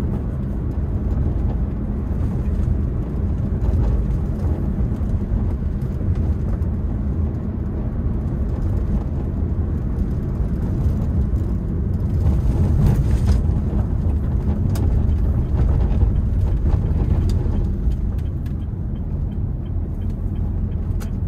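Cabin noise of a Honda Brio hatchback cruising in fourth gear: a steady low engine hum with tyre and road noise, a little louder for a few seconds past the middle.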